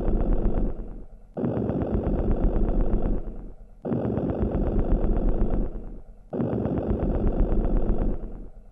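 Edited soundtrack loop: a gritty, buzzing electronic phrase that starts sharply and fades out, repeating about every two and a half seconds over a steady deep bass hum.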